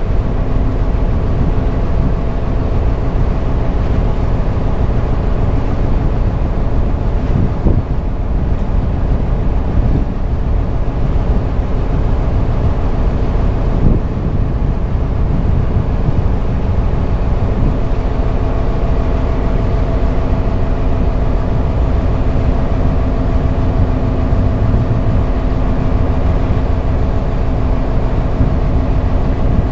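A dhoni's engine running steadily under way, a low drone with a steady hum, mixed with the rush of wind and water past the hull.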